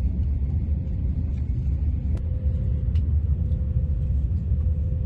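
Steady low rumble of a moving passenger train, heard from inside the carriage, with a faint steady hum above it.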